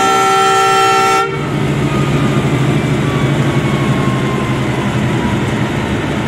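Diesel locomotive horn sounding a chord of several steady tones, cutting off about a second in; the locomotive's diesel engine then runs at idle with a steady low hum.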